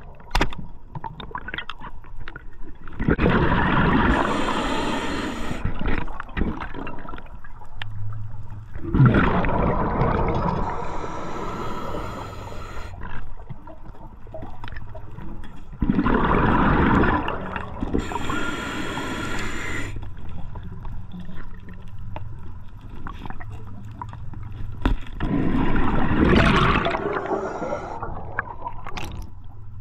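Scuba diver breathing through a regulator underwater: a loud burst of exhaled bubbles about every six to seven seconds, four times, with a fainter hiss of inhaling between them.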